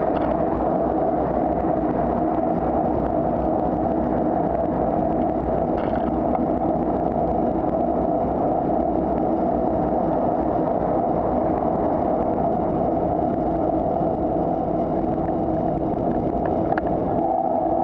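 Steady rumble of wind and road noise on a moving bicycle's camera microphone, with car traffic running alongside.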